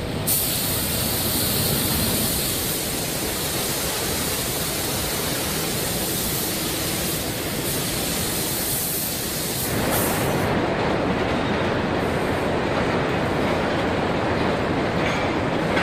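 Steady hiss of spray guns and paint-booth air as a car body is spray-painted. About ten seconds in it changes abruptly to a duller, lower factory rumble of the body conveyor line.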